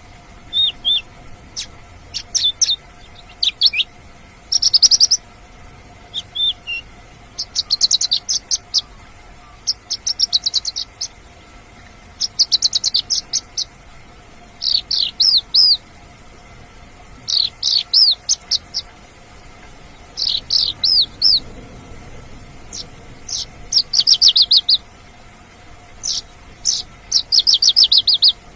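Mongolian lark singing: short bursts of rapid, high chirping and trilled notes, repeated with pauses of about a second between them, over a faint steady hum.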